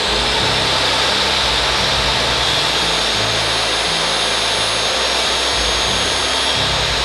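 Table saw fitted with a 60-tooth Freud blade, running at full speed with a steady, loud motor whine.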